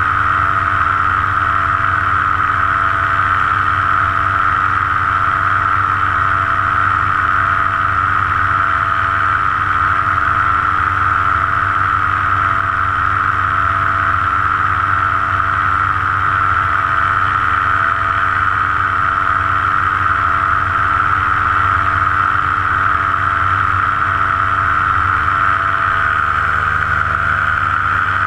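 Paramotor engine and propeller running steadily at cruise power in flight, a loud, even drone with no change in pitch.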